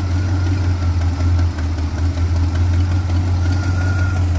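Oldsmobile 455 V8 in a 1974 GMC pickup idling steadily, with a slight miss until it warms up and a little pop from an exhaust leak that the owner thinks is at one of the manifold gaskets.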